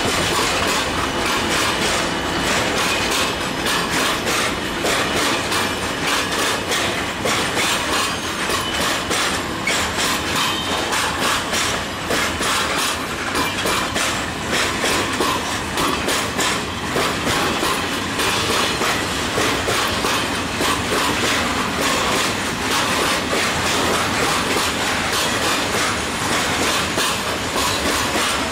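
Freight train of loaded flat wagons rolling past at steady speed: a continuous rumble of wheels on rail, with a dense, rapid clickety-clack of wheels over rail joints.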